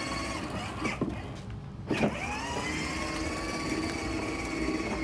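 Electric motor and gearbox of a battery-powered Mater ride-on toy car whining steadily as it drives. The whine cuts out for about half a second around a second and a half in, then starts again.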